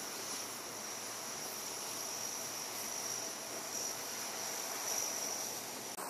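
C-130 Hercules turboprop engines running as the aircraft taxi past, a steady rush of propeller and engine noise with a thin high whine over it.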